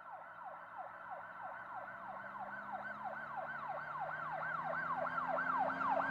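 Emergency vehicle siren in yelp mode: a fast, repeating falling-and-rising wail, about three sweeps a second, growing steadily louder.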